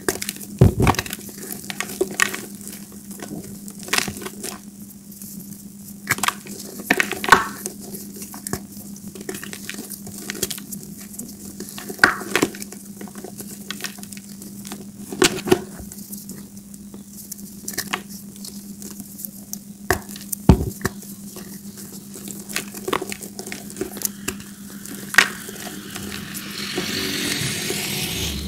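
Hands crushing and squeezing dry gym chalk balls: irregular gritty crunching and crumbling, with sharper cracks every few seconds as lumps break. Near the end it turns into a steadier gritty rustle as the powder is rubbed and pressed.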